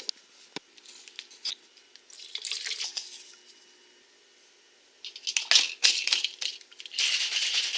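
A pre-workout drink being mixed: a few clicks and knocks of containers being handled, a short pour about two seconds in, then from about five seconds in a rattling that turns into steady shaking of a shaker bottle near the end.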